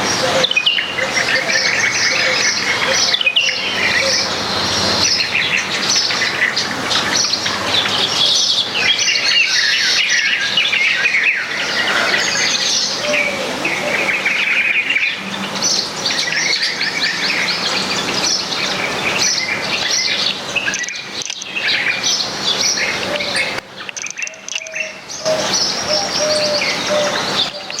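A flock of small garden birds chirping and twittering, many overlapping calls, thinning out briefly about three-quarters of the way through.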